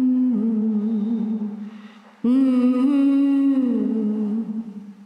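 A voice humming two long held notes without words, the second starting a little over two seconds in; each note steps slightly down in pitch before it fades.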